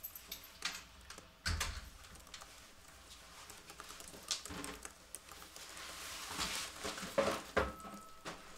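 Quiet small-room activity: laptop keyboard typing, footsteps and rustling of clothes and a bag, with scattered light knocks and a heavier thump about a second and a half in.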